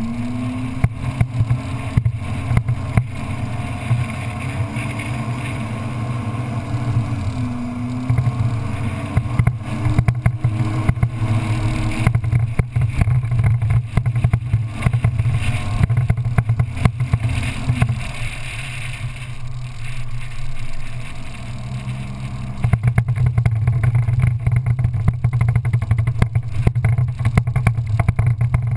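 Off-road vehicle engine running hard while driving on sand, its pitch stepping up and down with the throttle. It eases off about eighteen seconds in and picks up again a few seconds later. Wind buffets the microphone throughout.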